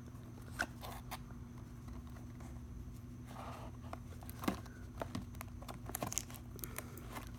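Faint handling noise from a sealed cardboard box: scattered light taps, clicks and soft rustles as it is turned over in the hands.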